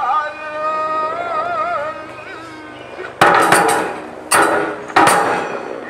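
Nanbu kagura music: a voice chants a long, wavering line, then three loud ringing percussion strikes from the kagura drum and hand cymbals, about a second apart, starting about three seconds in.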